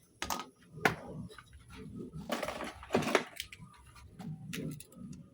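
Handling noises from small objects and tools: scattered light knocks and clicks, with a short scraping rustle about halfway through.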